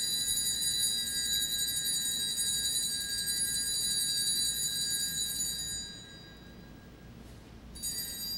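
Altar bells ringing at the elevation of the host: a steady, high, many-pitched ringing that fades about six seconds in, then sounds again briefly near the end as the priest genuflects.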